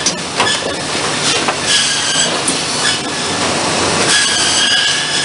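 Cedar shake mill machinery running loudly: a continuous din with a high whine that comes and goes twice, and a few sharp knocks.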